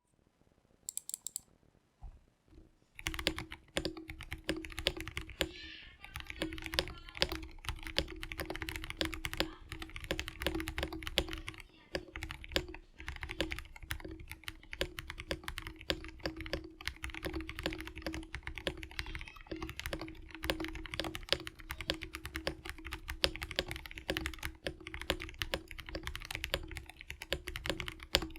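Continuous fast typing on a Rama Kara gasket-mount 60% custom mechanical keyboard with lubed Gateron Milky Black linear switches, a polycarbonate plate, thick PBT keycaps and lubed Durock v2 stabilizers. The typing starts about three seconds in, after near silence broken by a brief faint sound about a second in.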